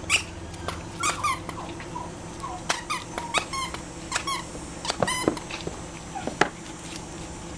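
Nine-week-old Cairn terrier puppies giving short, high squeaks and yips that bend up and down in pitch, scattered irregularly, with a few light clicks among them.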